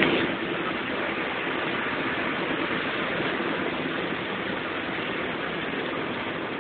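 Steady hiss and rumble of a bus interior, the engine and road noise running without a break, with a brief louder knock right at the start. The sound is dull and cut off in the highs, as from an old phone's microphone.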